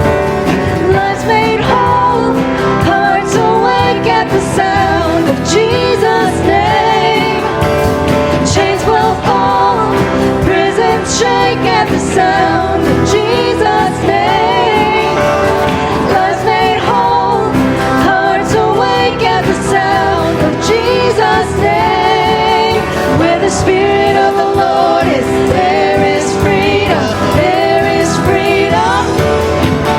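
Contemporary Christian worship song: singing over instrumental band accompaniment.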